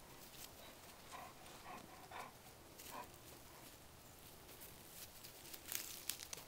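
Young dogs playing, giving a few faint, short yelps, with scuffling paws and clicks on dry ground; a brief cluster of louder clicks comes near the end.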